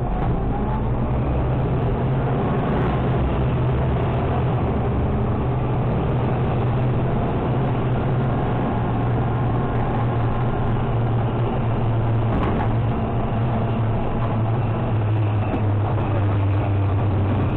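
Automated side-loader garbage truck's diesel engine running steadily, heard from the hopper while the arm tips a cart, with a few light knocks, one about twelve seconds in.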